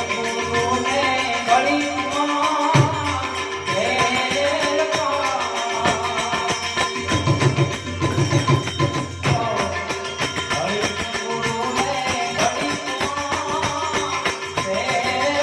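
Gujarati santvani devotional folk music: a gliding melody over a steady hand-drum rhythm and jingling percussion, with the drumming heaviest about halfway through.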